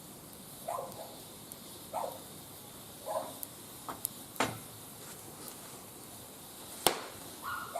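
A dog barking or yapping three times, short calls about a second apart, with a few sharp cracks between them, the loudest crack near the end.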